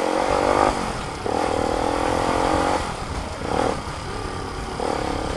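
Motorcycle engine running through an aftermarket muffler while riding, at steady revs in three stretches with brief drops in between, over low wind and road rumble.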